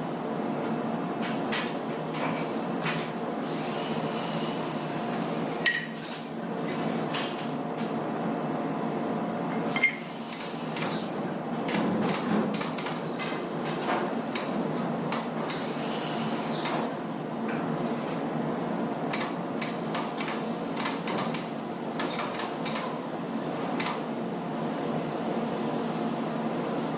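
Irregular knocks and taps of a hammer and hand tools on wood, with two sharper blows about six and ten seconds in, over a steady background hum.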